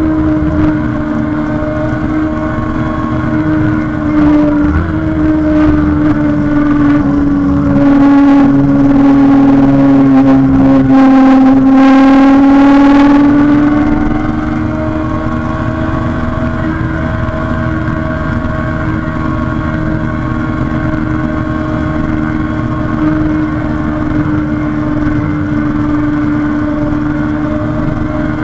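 Kawasaki Ninja 636's inline-four engine running at a steady pitch. From a few seconds in it grows louder and its pitch sags slightly, then it rises back to a steady pitch about halfway through.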